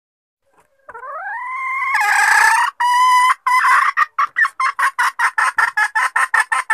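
Junglefowl hen's lure call: a drawn-out note rising in pitch, a couple of longer notes, then a run of short repeated clucks that quickens to about four a second. It is played to draw in wild junglefowl cocks.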